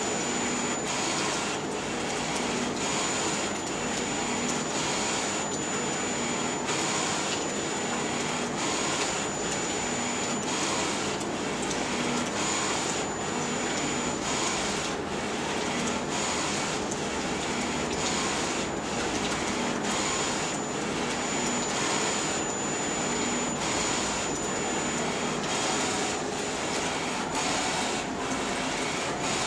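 Flatbed digital T-shirt printer printing: the print-head carriage sweeps back and forth about once a second over a steady whir, with a thin high whine that comes and goes.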